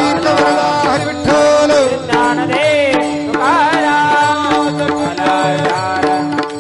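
Devotional kirtan music: steady held notes with hand-drum strokes throughout, and a singer's wavering melodic run around the middle.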